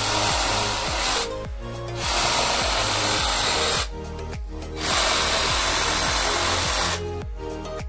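Cordless drill spinning a wire brush against the painted wooden leg of a stool, in three bursts of a second or two each, scouring the finish. Background music with a steady beat plays underneath.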